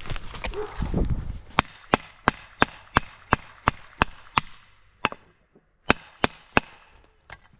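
Sharp blows striking dead pine wood: a steady run of about nine, some three a second, then a few more after a short pause. The blows are knocking a stuck cut piece of the tree loose.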